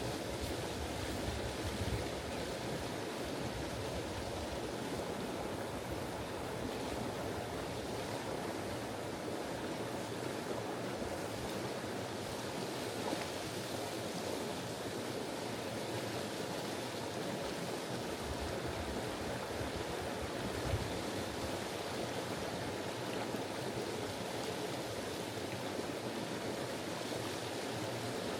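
Steady rushing of a shallow river running over rocks, an even wash of water noise with no let-up.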